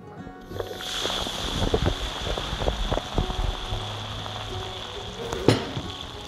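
Sparkling water poured over ice into a tall glass, fizzing and crackling, with many small ice clicks and pops. One sharp clink about five and a half seconds in.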